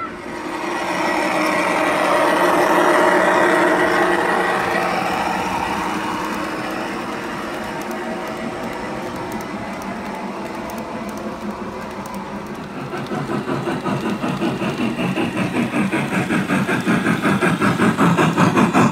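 Large-scale garden-railway model trains rolling past on outdoor track. A train of autorack cars rumbles by, loudest a few seconds in, then a Denver & Rio Grande Western steam locomotive and boxcars pass close with a fast, regular clatter that grows louder toward the end.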